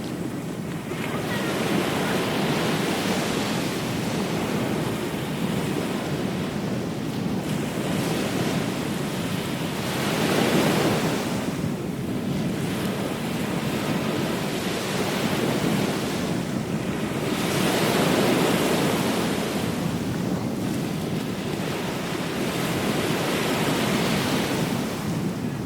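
Ocean surf: waves breaking and washing up the shore as a continuous rush that swells louder a few times, with wind rumbling on the microphone.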